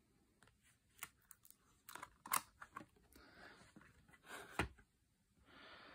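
Faint handling sounds of a cardboard board book being picked up and its cover opened. Scattered light taps and clicks, soft sliding and rustling of the stiff pages, and a sharp click about four and a half seconds in.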